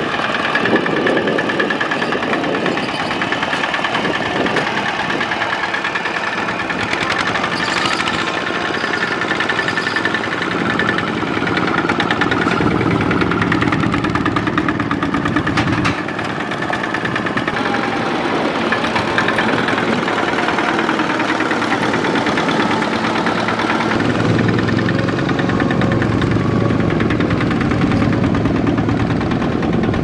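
Two-wheel walking tractor's single-cylinder diesel engine running with a steady knocking chug. The sound changes abruptly about halfway through.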